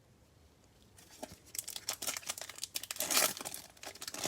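A Prizm basketball card pack's wrapper being torn open and crinkled by hand. It starts about a second in as a dense run of crackles, loudest near the end.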